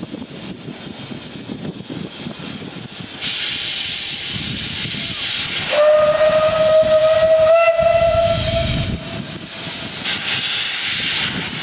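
Narrow-gauge steam locomotive hissing steam loudly. A single whistle blast of about three seconds, one steady note rising slightly, sounds over the hiss partway through.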